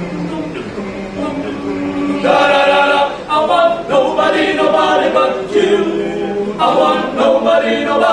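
Unaccompanied group of voices singing together a cappella, holding notes and moving between them about once a second. The singing swells louder about two seconds in.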